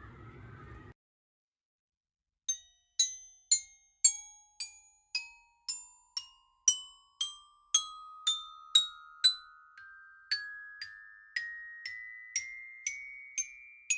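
Mallet-percussion music: a run of single, bell-like struck notes, about two a second, climbing steadily in pitch. It starts after a second or so of dead silence.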